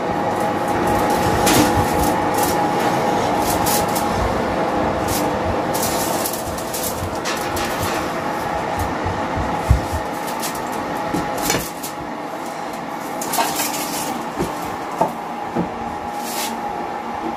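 A kitchen fan running with a steady whirr and hum, while a hot foil-covered baking tray is lifted out of an oven and set down on the hob, with a few knocks and clinks of metal, mostly in the second half.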